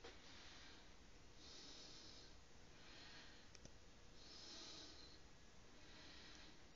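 Near silence with faint, soft breaths recurring about every second and a half, close to the microphone.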